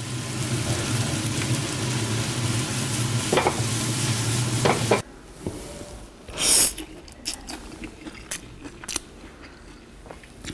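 Xuzhou fried noodles sizzling as they are stir-fried in a wok over a steady low hum, with metal clattering against the pan. The sound cuts off abruptly about halfway, leaving quieter scattered clinks and one short loud rush.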